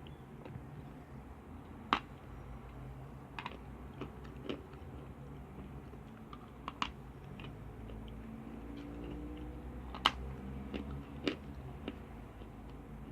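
Lumps of chalk being bitten and crunched: a few sharp, separate cracks spread out, the loudest about two seconds in and about ten seconds in, over a low steady hum.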